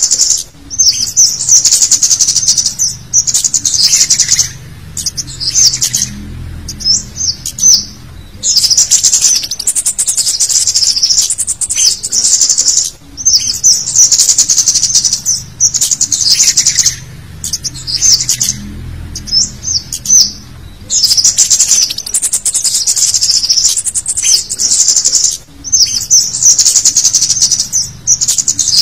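Cit kemade bird's lure call: busy, high-pitched chirping in repeated bursts of a second or two, with short breaks between them.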